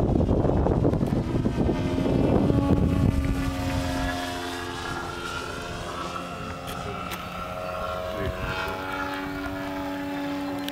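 Engine and propeller of a Carf MX2 aerobatic RC model plane running in flight: a steady droning note that wavers slightly in pitch. For the first few seconds wind rumbles loudly on the microphone.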